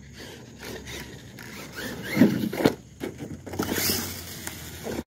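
Electric radio-controlled monster truck driving on asphalt: its motor whines and its tyres squeal and scuff, loudest about two seconds in.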